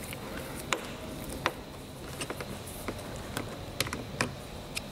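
Irregular light clicks and taps of a pry tool and fingers working a door trim piece loose, about a dozen in all, a few coming in quick pairs.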